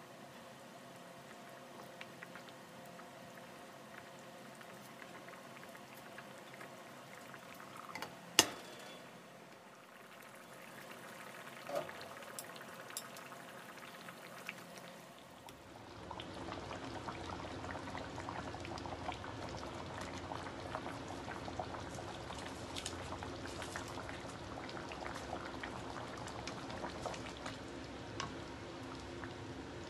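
Pork spare ribs in tomato sauce bubbling at a simmer in a pan, with one sharp knock about eight seconds in. About halfway through the bubbling becomes louder and busier, with many small pops.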